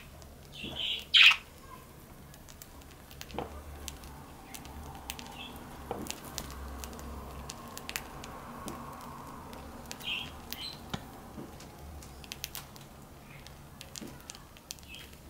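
Young budgerigars chirping loudly in the first second or so, one fluttering its wings, then a steady scatter of small clicks as they crack and peck seed from a palm, with occasional short chirps.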